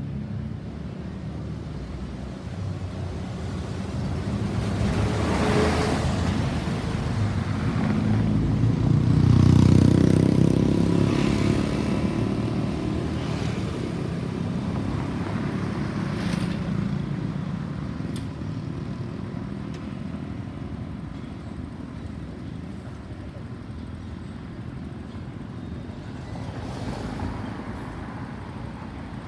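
Road traffic passing: a vehicle's engine grows louder, passes closest about ten seconds in, and fades away, with other vehicles going by.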